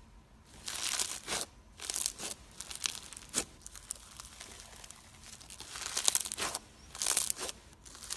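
Thick, fluffy green slime being squeezed, folded and pulled apart by hand, giving crackly, crunchy crinkling in short bursts with quiet gaps.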